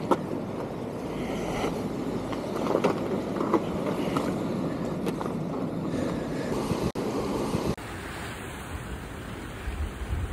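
Ocean surf washing against the rocks of a jetty, with wind buffeting the microphone and a few sharp ticks. About eight seconds in it drops to a quieter, steadier wash of waves.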